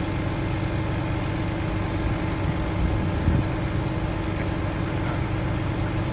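A vehicle engine idling steadily, an even low hum, with a brief low thump about three seconds in.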